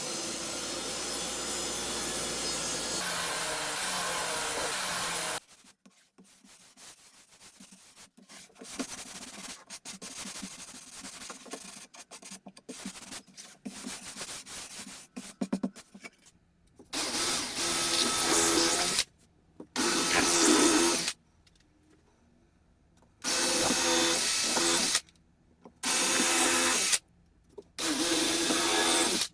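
A power tool runs steadily for about five seconds, then quieter knocks of wood being handled, then five short bursts of a drill-like motor, each lasting a second or two, typical of driving screws into plywood with a drill.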